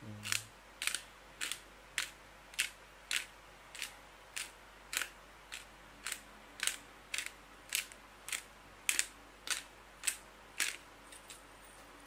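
A seasoning shaker being shaken over salmon steaks: a sharp, dry shake about twice a second, stopping near the end.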